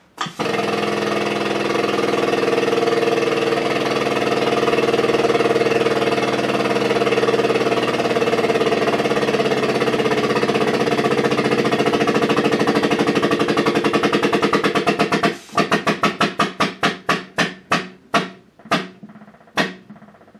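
Hydraulic press pump running with a rapid, steady chatter as it squeezes the folded paper. For the last five seconds or so the chatter breaks into separate strokes that come slower and slower as the pump stalls against the load: the press has reached the limit of its force.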